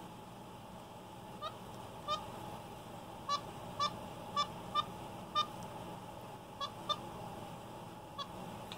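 Capuchin monkey giving short, high-pitched peeps, about ten spread irregularly over several seconds.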